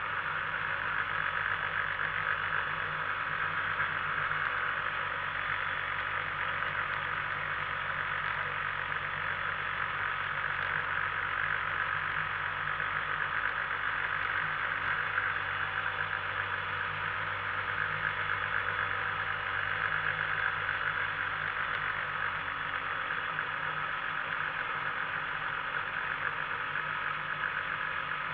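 Microlight trike's two-stroke Rotax engine idling steadily on the ground, heard close up.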